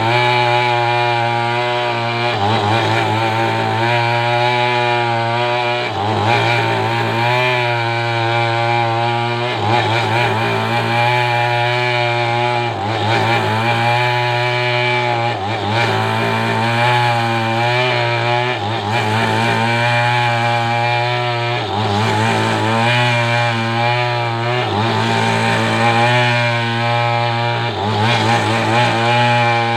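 Two-stroke chainsaw running steadily under load, cutting a coconut palm trunk lengthwise into beams. Its pitch wavers and dips briefly about every three seconds.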